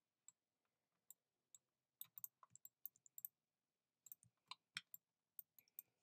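Faint, irregular clicking of a computer mouse and keyboard while working at a computer, in scattered clusters with short gaps.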